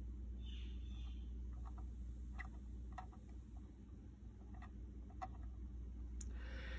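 Soldering iron melting solder onto a twisted copper wire splice: faint, scattered small ticks and crackles, with a brief soft hiss about half a second in.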